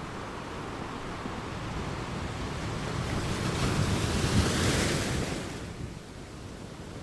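Fast-flowing stream rushing steadily, swelling to a louder surge about halfway through that dies back a second or so later, with a low rumble that may be wind buffeting the microphone.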